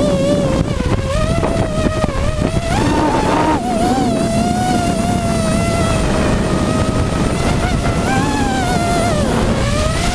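Hexacopter's six Robbe 2216 brushless motors and propellers whining, the pitch wavering and gliding up and down as the throttle changes, with a brief dip and rise near the end.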